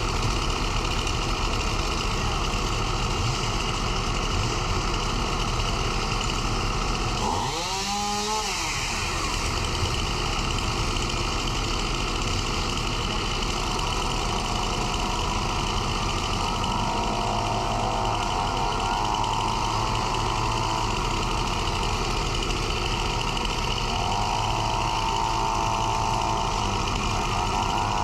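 Excavator engine running steadily under work, dipping and rising in pitch once about eight seconds in, with a hydraulic whine coming and going twice in the second half.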